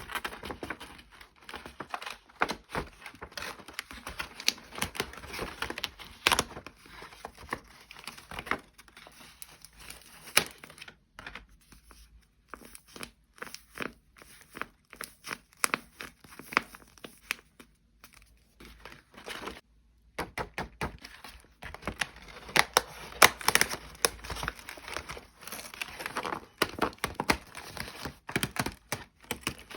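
Paper crinkling and tearing in irregular crackly bursts as a handmade paper blind bag is opened. The handling is quieter for several seconds near the middle, with only scattered small clicks, then busier again.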